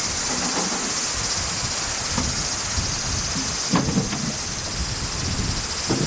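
Cicadas chorusing in a steady high hiss, with a few light knocks about four seconds in.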